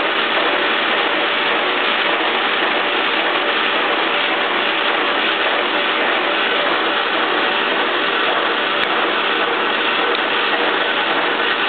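Soviet 1K62 engine lathe running at about 100 RPM under coolant, taking a light finishing cut in a tractor front-axle bevel gear case: a steady mechanical noise that stays even throughout.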